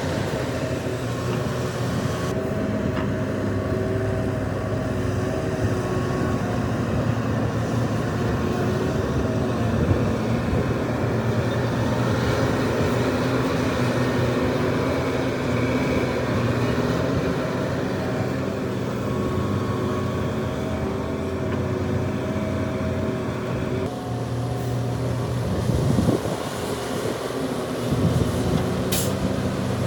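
Heavy diesel earthmoving machinery, a large excavator working with dump trucks, running steadily throughout. There is a short knock near the end.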